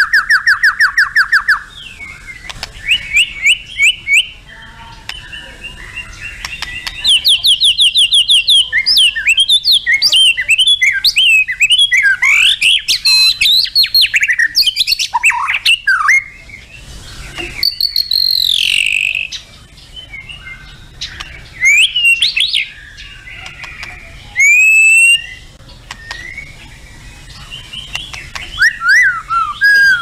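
White-rumped shama singing: a long, varied song that opens with a fast trill of repeated notes, then runs on in phrases of clear whistles, quick rising and falling glides and chatters, with short pauses between them.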